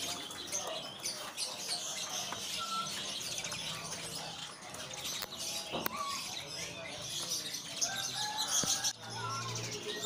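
Many caged songbirds chirping and twittering at once, a dense, continuous high-pitched chatter with a few lower whistled calls mixed in.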